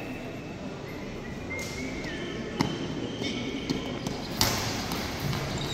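Goalball ball, the rubber ball with bells inside, striking the wooden gym court: a sharp knock about two and a half seconds in and a louder, brighter impact a little past four seconds, over the steady hum of a large hall.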